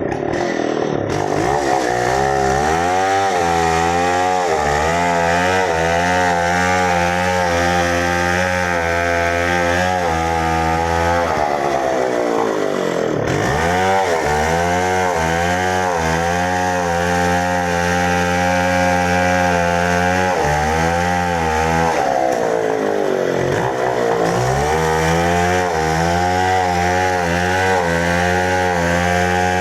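Two-stroke chainsaw running at high revs while cutting into a tree. The engine pitch sags and climbs back at the start, about halfway through and again past the three-quarter mark, as the revs fall and pick up again.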